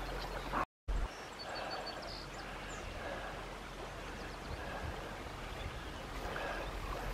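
Steady outdoor ambience on a riverbank: a soft, even rush of air and water, with a short run of faint high bird chirps about a second and a half in. The sound drops out completely for a moment just under a second in.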